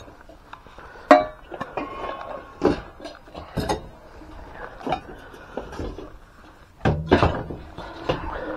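Old metal items being handled: a series of separate clanks, knocks and thuds, the loudest a ringing metal clank about a second in and a heavier double knock near the end.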